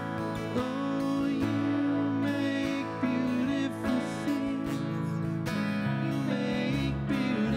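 A slow worship song played live on strummed acoustic guitar with piano and a bowed string instrument.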